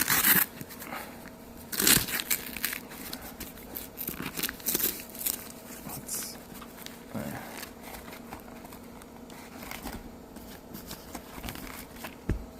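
Packaging crinkling and rustling, with scattered clicks, as a new lockpick set is unwrapped and handled. The loudest rustles come at the very start and again about two seconds in, with lighter handling after.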